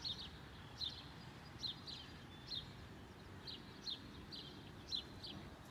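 A songbird giving short, high chirps that drop in pitch, often in pairs, about one or two a second, over faint steady low background noise.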